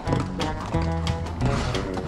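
Background music with sustained bass notes and a beat.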